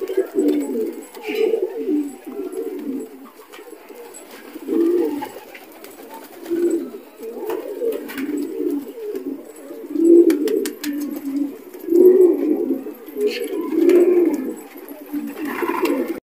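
Domestic pigeons cooing over and over, low rolling coos rising and falling in bouts every second or two. A quick run of light clicks comes near the end.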